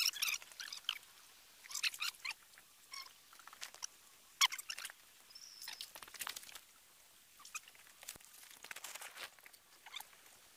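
Irregular crunching and scuffing of footsteps on stones and dry leaves, in short uneven bursts, the sharpest a little before halfway.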